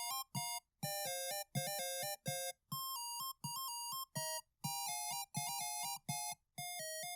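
Electronic music: a synthesizer keyboard tune of short, separate chord notes, each with a soft low thud beneath.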